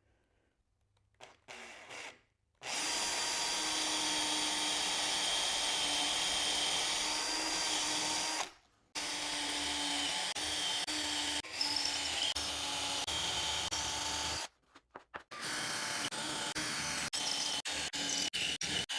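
Cordless drill with an 8 mm bit boring dowel holes into timber. It runs steadily for several seconds, stops briefly, runs again, then starts a third time with short stop-start stutters near the end.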